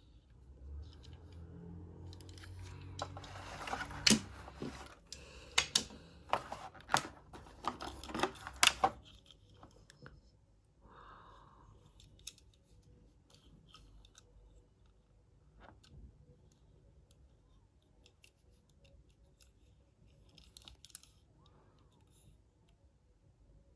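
Toy car packaging being handled and opened: a few seconds of sharp plastic crackles and clicks, loudest in the middle, then quieter, scattered ticks of handling.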